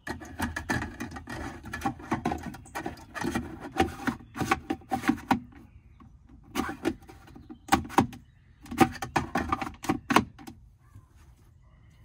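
Plastic cup holder being worked into the centre console of a Land Rover Discovery 2 and its handle turned: a quick run of plastic clicks, knocks and rattles in several clusters, dying away about ten seconds in.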